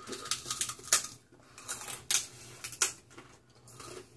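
Fish cracker chips being bitten and chewed: a run of crisp, irregular crunches, the sharpest about a second in and again near three seconds.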